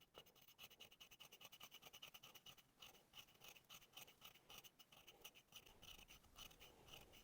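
Knife blade scraping thin bark into fine shavings: faint, quick, repeated scratching strokes, several a second.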